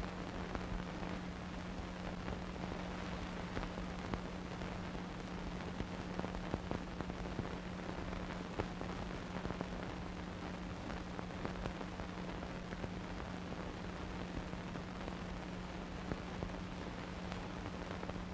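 Steady hiss with scattered crackles and pops over a constant low hum: the noise floor of a silent archival film transfer, with no recorded sound of its own.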